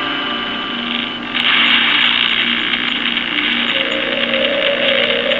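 Spirit box app playing loud, steady hiss-like static with faint steady tones underneath; the static jumps louder a little over a second in.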